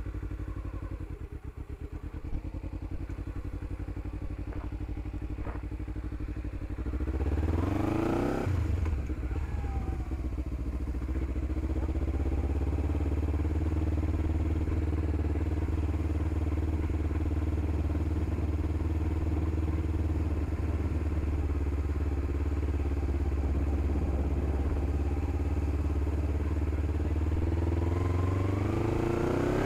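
Kawasaki Ninja 300's parallel-twin engine running at low revs, then revving up about seven seconds in as the bike pulls away. It runs steadily at low speed after that, with another rise in revs near the end.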